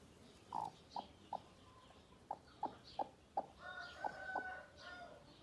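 Broody hen clucking softly in short single clucks, several in quick succession, with a longer drawn-out chicken call about four seconds in.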